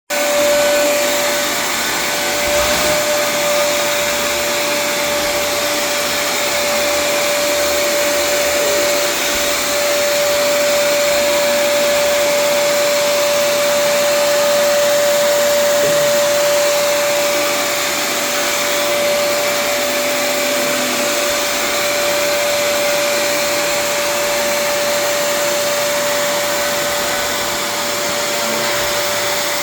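Vacuum cleaner running steadily, a constant rushing noise with a steady whine.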